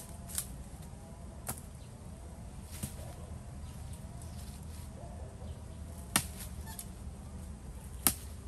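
Firewood being chopped with a blade: single sharp chops at uneven intervals, about five in all, the loudest two in the second half.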